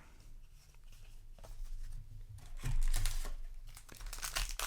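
Magic: The Gathering cards being handled and slid past one another, giving short papery swishes and rustles, the loudest a little past the middle.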